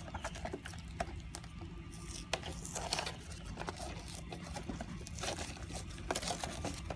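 Crinkling, scraping and light tapping from a plastic soft-drink bottle being handled, in short irregular bursts over a low steady hum.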